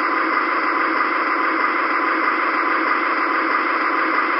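Steady, even whirring hiss of O-gauge three-rail model trains running on the layout, with no change in level.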